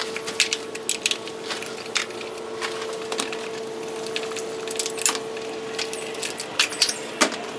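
Scattered clicks, knocks and small metal rattles of a Stihl chainsaw being taken apart by hand to remove its chain, over a steady hum.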